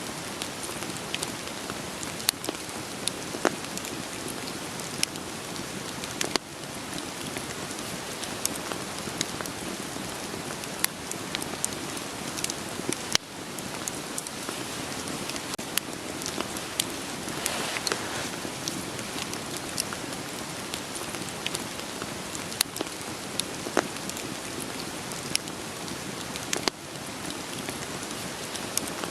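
Steady rain falling, with scattered sharp pops and crackles from burning firewood.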